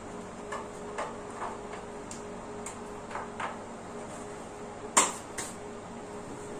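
Scattered small clicks and taps of wires and plastic parts being handled while wiring a relay board in a junction box, with one sharper click about five seconds in. A faint steady hum runs underneath.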